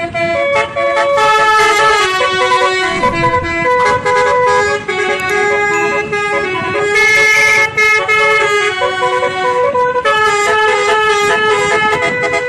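Bus telolet horn playing a loud tune of held notes that step up and down in pitch.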